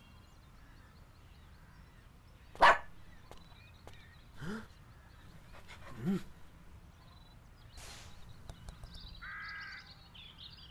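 Small cartoon dog's short barks and yips, a few separate calls with pauses between them; the loudest and sharpest comes about two and a half seconds in.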